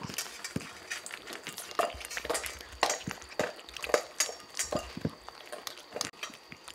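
A kitten eating dry food from a ceramic bowl: crunching and chewing, with irregular small clicks of kibble against the bowl.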